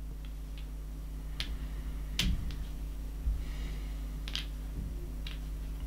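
Scattered light clicks and taps of game pieces being handled on a tabletop, about seven in all, the sharpest a little over two seconds in, over a steady low room hum.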